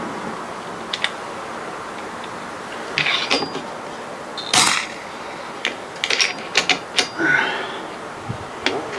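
Metallic clicks and knocks from an FX Crown PCP air rifle being handled and cycled, with one louder sharp report about halfway through: a shot through a Donny FL moderator.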